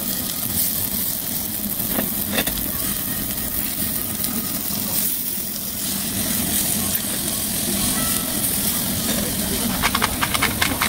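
Beef sizzling on a hot stone grill slab as it is cut with a knife and fork, over a steady background hum. Near the end comes a quick run of clicks from a pepper grinder.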